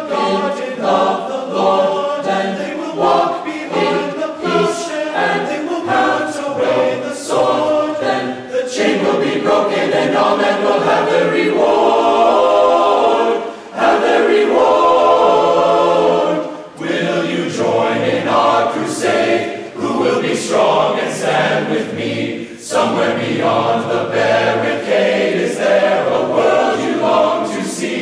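Mixed choir singing in full harmony, loud and sustained, with short breaks between phrases.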